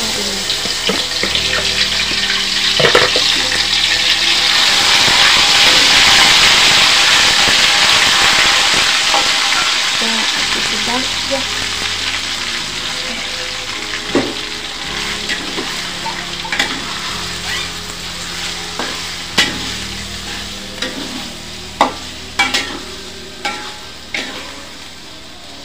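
Marinated beef chunks sizzling in hot vegetable oil in a metal wok. The sizzle is loudest several seconds after the meat goes in, then slowly dies down. A metal spoon scrapes and clinks against the wok as the meat is stirred, the clinks coming more often near the end.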